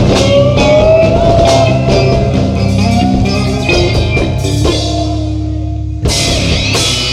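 Stoner rock band playing live: distorted electric guitars, bass and a drum kit with steady cymbal hits. About five seconds in the drums drop away under one held note, and a second later the full band crashes back in with a brighter lead guitar line.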